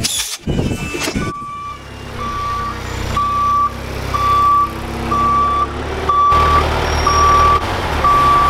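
Backup alarm of a Moffett truck-mounted forklift beeping, a single steady tone about once a second, over its diesel engine running, which grows louder about six seconds in.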